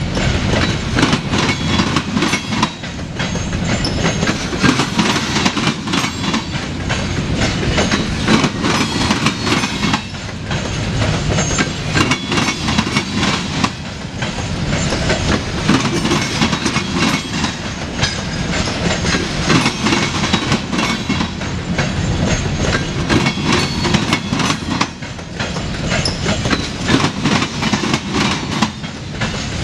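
Freight train of covered hopper cars rolling past close by: a steady rumble with the wheels clicking and clacking over the rail joints.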